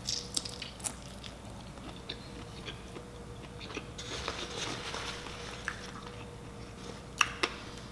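Close-miked eating of a seafood boil: biting and chewing with scattered sharp clicks and crackles, a denser crackly stretch about halfway through, and two sharp clicks near the end.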